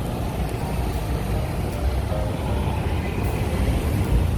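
Steady low rumble of road vehicles and street traffic.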